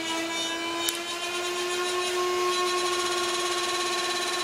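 Nerf Rayven CS-18 flywheel motors spinning on a bench power supply, their whine rising in pitch as the supply is turned up toward 12 volts, double the stock 6, then holding steady. A single click about a second in.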